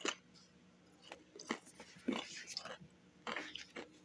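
Someone chewing crackers: a string of irregular, crisp little crunches.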